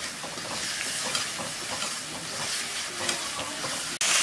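Chopped tomatoes sizzling in hot coconut oil in a metal kadai, stirred with a steel spoon, as they are sautéed soft in the mustard-seed, chilli and curry-leaf tempering for rasam. The sizzle turns suddenly louder near the end.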